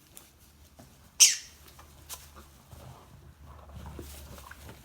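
Pet parrot giving one short, sharp, high-pitched squawk about a second in, followed by faint scratching and rustling.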